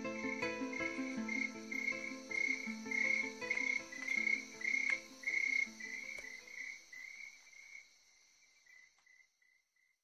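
Background music with a repeated, chirp-like high note, fading out to silence over the last few seconds.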